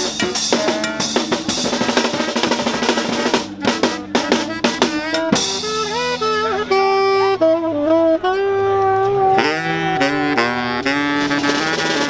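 Instrumental music: a busy drum beat with chords for about the first five seconds, then a melody of held notes moving step by step over a quieter beat.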